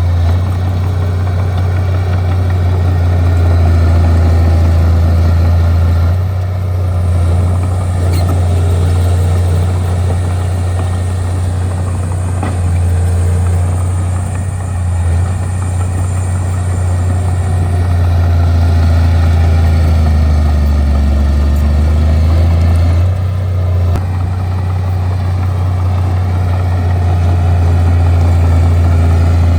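Bulldozer diesel engine running steadily with a strong low hum, its loudness dipping and rising slightly as the machine works. A faint high whine joins in for several seconds in the middle.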